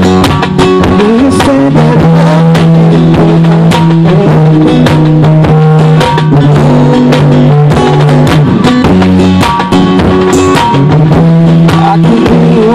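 Live band playing a song, a drum kit striking steadily over long held bass notes.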